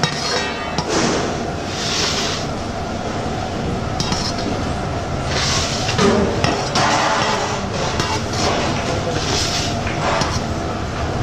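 A steel plate is pressed and rubbed over soft Mysore pak mixture in a tin tray, making several scraping swishes and light metal clinks over a steady background rumble.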